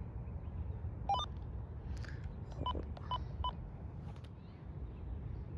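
Radio scanner beeping as it is switched on: a short rising two-note beep about a second in, then three short beeps evenly spaced a little under half a second apart, over a steady low rumble.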